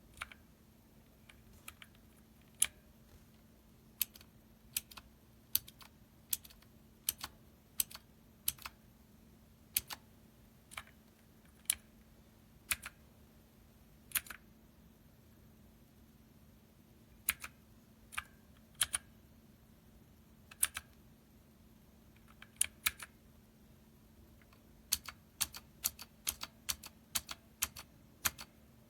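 Dierya T68SE 60% mechanical keyboard with clicky blue switches, single keys pressed one at a time in an uneven, unhurried rhythm. There is a short pause partway through, then a quicker run of presses near the end.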